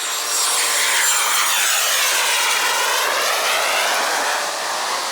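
Jet aircraft passing overhead: a steady, loud rush of jet engine noise with a phasing tone that sweeps down and back up as it goes by. It is cut off suddenly at the end.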